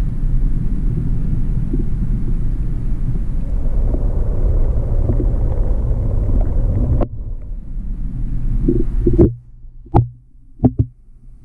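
Muffled low rumble of river water heard by a camera held underwater. It drops away about seven seconds in, and a few sharp knocks follow near the end.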